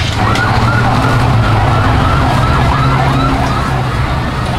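A siren wavering up and down in pitch a few times a second, over a steady low hum.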